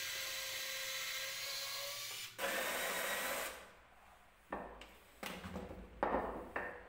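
Bosch cordless drill boring into a wooden table leg: a steady motor whine with the bit cutting wood for about two and a half seconds. It then breaks off and comes back louder for a second run of about a second. Several short bursts of drilling follow.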